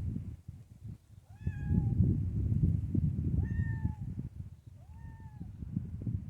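Cat meowing three times, each meow a short call that rises and then falls in pitch, over a low rumbling background noise.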